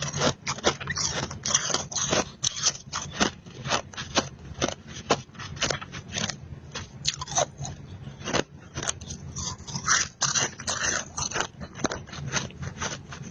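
Close-miked chewing of powdery freezer-frost ice: dense, irregular crunches, several a second.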